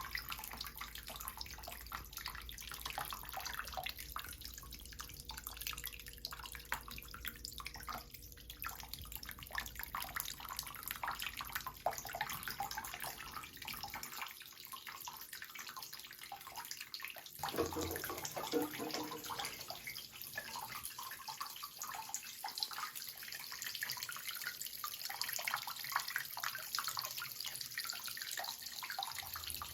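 Water trickling and splashing in a homemade indoor water fountain: a steady run of small splashes and drips. A low hum underneath stops about halfway through.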